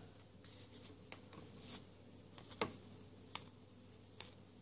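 Trading cards being flipped through by hand, card stock sliding and flicking: about five faint clicks, the loudest about halfway through.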